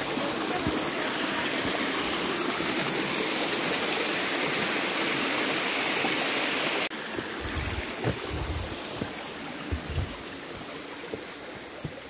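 Rushing water of a mountain stream falling over a tall waterfall, a steady loud rush that cuts off suddenly about seven seconds in to a quieter flow with a few low thumps.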